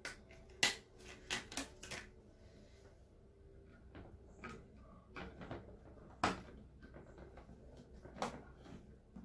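DDR3 RAM modules being pressed into a motherboard's memory slots: scattered sharp plastic clicks and taps, the loudest about half a second in and again about six seconds in.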